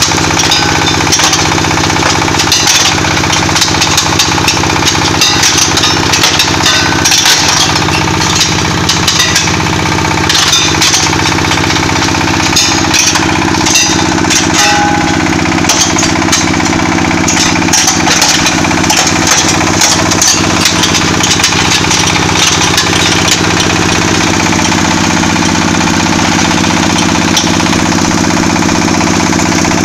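Small single-cylinder diesel engine running steadily while it drives a PC400X300 hammer crusher, with irregular cracking and clattering as chunks of brick and stone are smashed by the hammers. The crushing stops after about twenty-two seconds, leaving only the engine and the crusher running empty.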